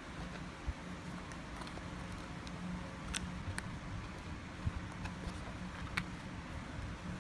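A steady low hum with a handful of light, sharp clicks and taps scattered through it.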